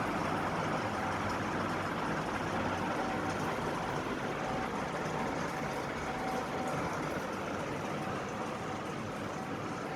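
2001 National F560A1 ceiling fan running: a steady rush of moving air over a low motor hum.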